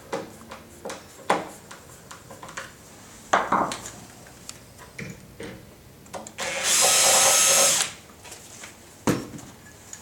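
Cordless drill driver runs for just over a second, about two-thirds of the way in, driving a screw that fixes the door handle to the door. Around it are light clicks and knocks of the handle and screws being handled, with a sharper knock near the end.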